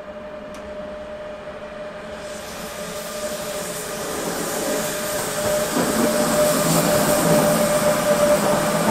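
Train approaching through the station, its running noise growing steadily louder, with a steady high whine throughout.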